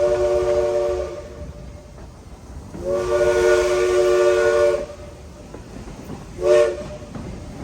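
Southern Railway 4501's Princeton three-chime steam whistle blowing a steady three-note chord. The tail of one long blast ends about a second in, then comes a second long blast of about two seconds and a short toot near the end, the long-long-short run of a grade-crossing signal.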